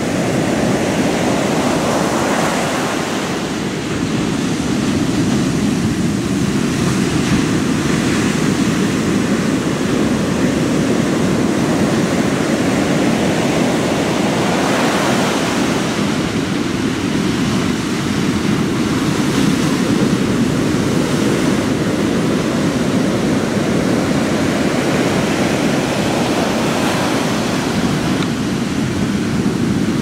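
Ocean surf breaking on a sandy beach: a continuous rush of waves, swelling into louder washes of hiss several times as each wave breaks and runs up.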